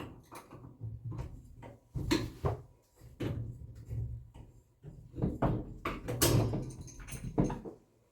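Irregular knocks, bumps and rustling, as of things being handled and set down in a small room.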